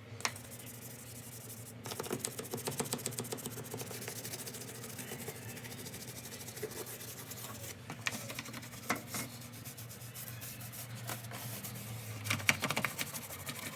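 Rapid rubbing strokes of scrubbing against a surface, coming in runs, over a steady low hum.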